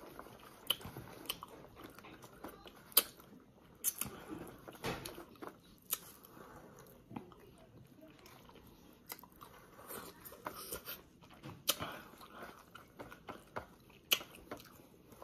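Marian plum (maprang) slices being bitten and chewed close to the microphone: irregular crunchy bites and smacks of chewing, with a sharp crunch every few seconds.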